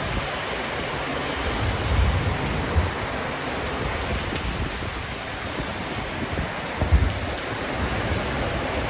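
Heavy rain pouring down, a steady dense hiss, with a couple of low thumps about two seconds in and again near seven seconds.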